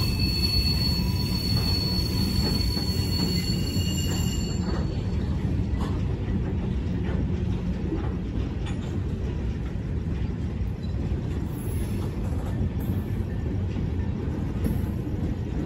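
Freight train cars rolling past at a grade crossing: a steady low rumble of steel wheels on rail with faint clicks over the joints. Thin, high wheel squeal is heard for the first four seconds or so, then fades out.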